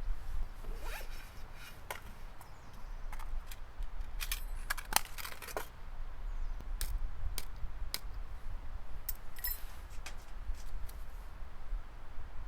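Camping gear being handled: irregular clicks, scrapes and short rasps over a steady low rumble.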